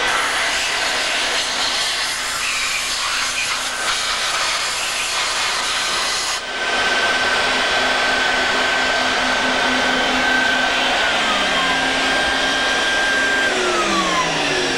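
Vacuum cleaner running loudly, a steady rushing noise with a constant whine. There is a short break about six seconds in, and near the end a whine slides down in pitch.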